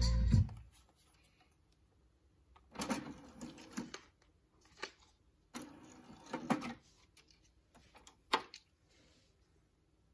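Music playing from the Yamaha CDX-393 compact disc player stops abruptly about half a second in. The player's disc tray mechanism then whirs and clunks for about a second as the tray opens, and again a couple of seconds later as it closes, followed by a sharp click near the end.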